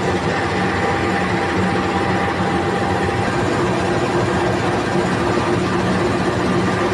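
KAI CC 206 diesel-electric locomotive standing at idle, its engine running with a steady, even hum.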